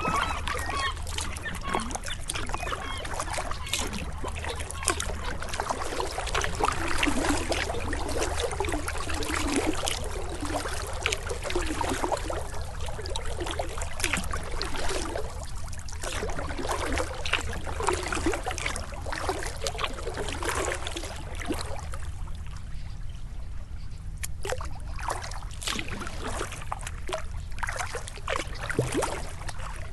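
Kayak paddle strokes: the blades dipping in and water trickling and dripping off them in an uneven rhythm, with a short lull a little past two thirds of the way through.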